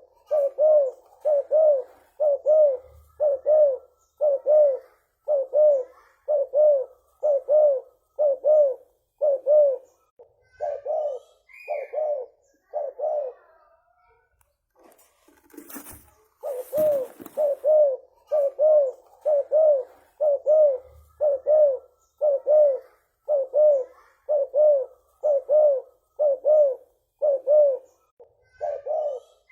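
Spotted dove (tekukur) calling in a long, rapid series of low coos, roughly three every two seconds. The series breaks off for about three seconds midway and resumes with a sharp click. A short higher chirp comes just before the break.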